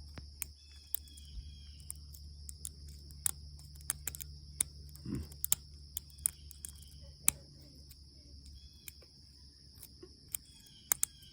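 Bobby pins working the seven pin tumblers of a PacLock 90A-Pro padlock: irregular small metallic clicks and ticks, a few sharper than the rest, as the pins are probed and set under tension.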